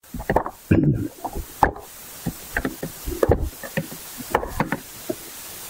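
Irregular knocks, taps and rubbing of a plastic collapsible foot spa tub as it is tilted and handled and its power cord is unwound.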